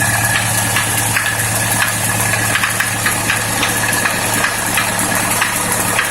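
ZMZ-51432 four-cylinder diesel engine idling, with sharp knocks a few times a second over the steady idle. The knock came on suddenly after a few minutes of warm-up and was absent on the cold engine.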